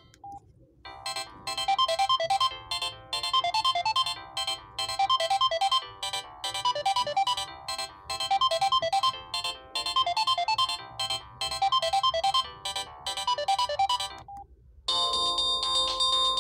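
Samsung SGH-S500 mobile phone playing a built-in polyphonic ringtone: a short bright melodic phrase repeated over and over, about every second and a half to two seconds. Near the end it stops and a different tone with long held notes starts.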